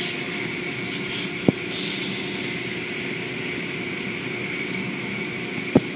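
Automatic car wash tunnel machinery running: a steady hiss of water spray and hum of the cloth brushes and motors. Two short clicks, one about a second and a half in and one near the end.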